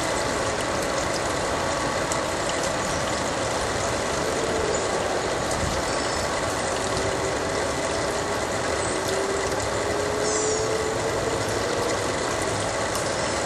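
Campania International Vintage Bordine Finial cast stone fountain's small jet splashing into its bowl, a continuous even splash of water.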